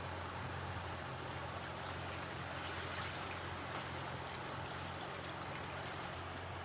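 Steady rush of flowing water with a low, even hum underneath.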